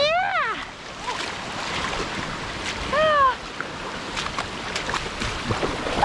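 Steady rush of a shallow creek running over rocks. Two short, high-pitched excited voice exclamations come over it, one at the very start and one about three seconds in.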